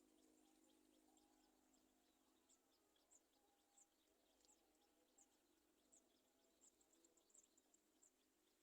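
Near silence, with faint, short, high bird chirps scattered irregularly and coming more often in the second half, over a faint steady hum.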